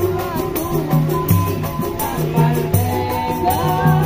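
A small acoustic street band playing: guitar with a steady repeating bass line and a shaken percussion keeping an even beat, while a singer's voice carries a sliding melody that grows stronger near the end.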